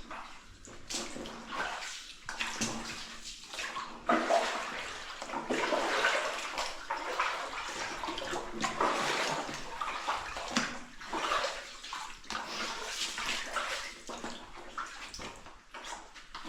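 Boots wading through shallow water, an irregular run of sloshing and splashing steps that grows louder about four seconds in.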